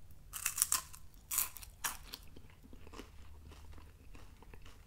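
Biting into and chewing a slightly stale Voortman sugar-free lemon wafer: a few crisp crunches in the first two seconds, then fainter chewing.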